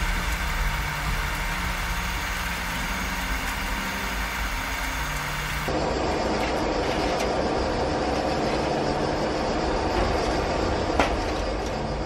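Hot steel cleaver blade being oil-quenched: steady hiss at first, then, about halfway through, a sudden change as the blade goes into the oil and the oil bubbles and sizzles around it. One sharp knock near the end.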